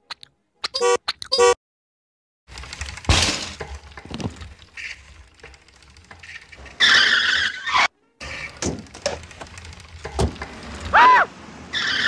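A run of cartoon sound effects: a toy car horn beeping a few times in quick succession, then a car engine running with several knocks and thuds, a loud tyre screech, and a short rising-then-falling tone near the end.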